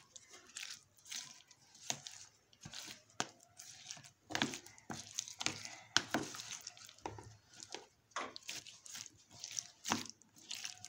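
A spoon stirring shredded potato, onion and green chilli into thick gram-flour batter in a plastic tub: an irregular run of wet, sticky stirring sounds and small clicks of the spoon.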